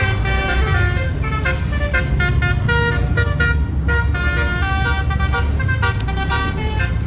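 Basuri 'telolet' musical bus horn playing a quick melody of short notes, changing pitch several times a second, over the steady low rumble of the bus engine.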